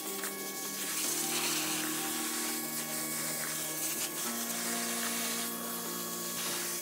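Giraffe Tools Grandfalls electric pressure washer spraying a jet of water against the base of a wall, a steady hiss, with background music underneath.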